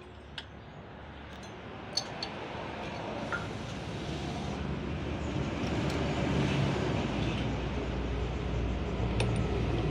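A motor vehicle's engine running, its rumble building gradually over several seconds and then holding, with a few light metallic clicks of tools on top.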